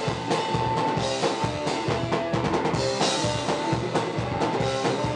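Live band playing an instrumental passage with no vocals: a drum kit keeping a steady beat under electric bass guitar and held melody notes.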